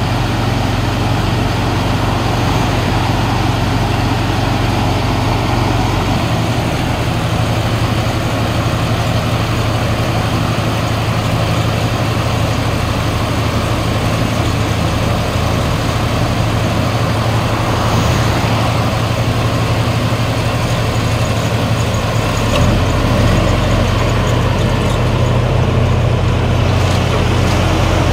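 Diesel engine of a tracked rice combine harvester running steadily. Its note shifts about six seconds in and grows a little louder about 22 seconds in.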